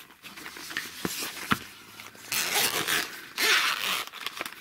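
Zipper on a red zippered watch-strap case being pulled open in two runs, starting a little over two seconds in and again about three and a half seconds in, after a few light clicks of the case being handled.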